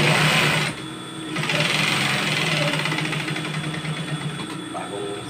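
Industrial sewing machine stitching fabric in two runs: it pauses briefly about a second in, runs again, and stops near the end, with the steady hum of its motor underneath throughout.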